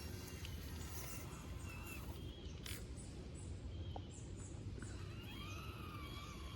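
Forest ambience: a steady low rumble, likely wind on the microphone, with scattered bird chirps. About five seconds in, a steady, slightly wavering whine begins and holds.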